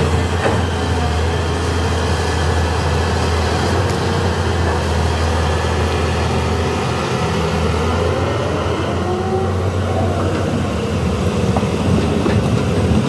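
Caterpillar 320D crawler excavator's six-cylinder diesel engine running steadily as the machine swings and raises its mud-filled bucket.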